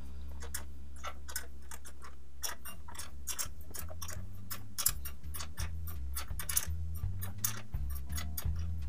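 Wrench turning a nut down a threaded hold-down rod on a bench grinder's base, giving a run of sharp, uneven metal clicks, several a second.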